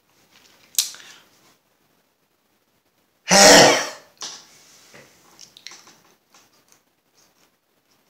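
A man's loud uncovered sneeze about three seconds in, followed by faint breaths and sniffs; a short sharp sound comes near the start.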